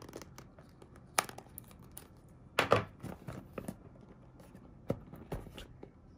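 A knife blade slitting the paper seal sticker on a small cardboard box, then the stiff card of the box scraping and rubbing under the fingers as it is handled. It comes as a few short scrapes and taps, the loudest about three seconds in.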